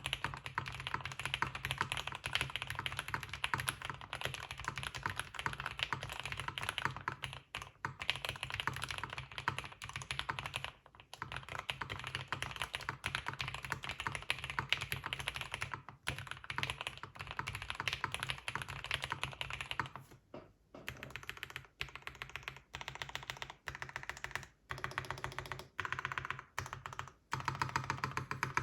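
Steady fast typing on a Mode 80 mechanical keyboard with lubed Everglide Aqua King linear switches on an aluminium plate and GMK Rudy keycaps: a dense run of keystrokes broken by several brief pauses, the pauses coming more often in the last few seconds.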